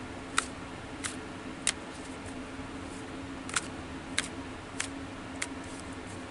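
A tarot deck being shuffled by hand: seven crisp card slaps, one about every 0.6 s, in a run of three and then, after a pause of nearly two seconds, a run of four.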